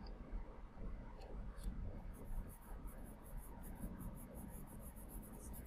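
Charcoal pencil scratching on layout paper in quick shading strokes, busier from about two seconds in.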